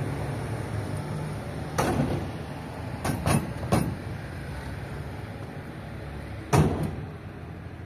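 Five sharp knocks at uneven intervals over a low, steady rumble, the last and loudest near the end.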